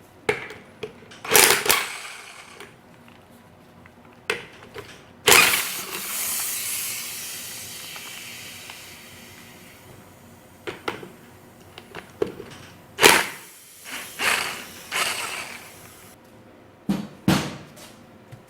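Workshop handling noises: a series of separate knocks and clatters of tools and metal parts. About five seconds in, one sharp hit runs into a hissing noise that fades away over several seconds.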